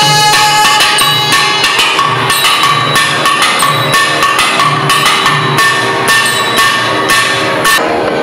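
Two thavil drums play a dense percussion passage of sharp strokes, with a deep bass pulse about once a second. Steady held notes from the reed instruments sound beneath.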